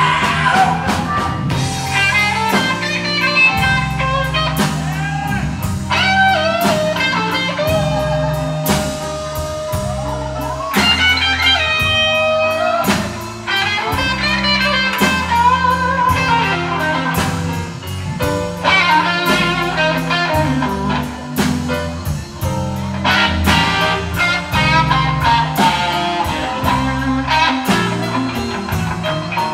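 Live blues band playing: electric guitar lead lines with bent, gliding notes and one long held note, over bass and a drum kit keeping a steady beat.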